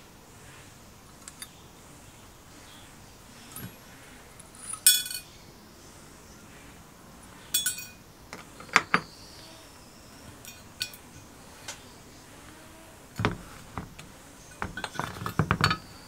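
Metal parts of an old rusted gas burner being handled by hand: scattered clinks and knocks, two short bright metallic rings about five and eight seconds in, and a run of rattling knocks near the end.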